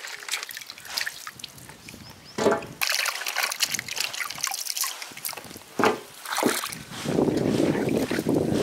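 Water splashing and trickling in irregular strokes, with louder splashes about two and a half and six seconds in; from about seven seconds a steadier, denser rushing noise takes over.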